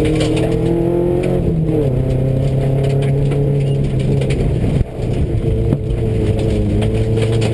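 A Subaru rally car's flat-four engine pulling at fairly steady revs, heard from inside the cabin, over clatter and ticks from the gravel road under the car. The engine note steps down about a second and a half in and briefly drops out about five seconds in.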